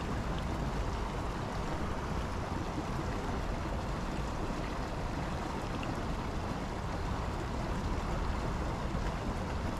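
Steady rush of shallow creek water running over rocks in a riffle, with an uneven low rumble underneath.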